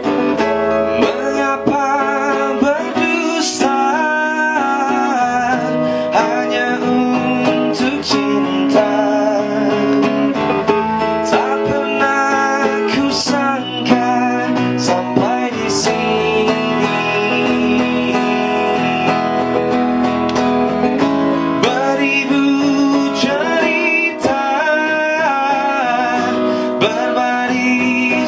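A man singing a song over acoustic guitar accompaniment, his voice unprocessed, without added effects.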